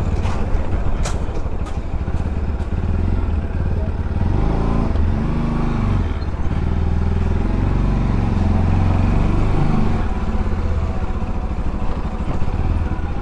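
Bajaj Pulsar NS200's single-cylinder engine running as the motorcycle is ridden at low speed, its pitch rising and falling with the throttle from about four to ten seconds in.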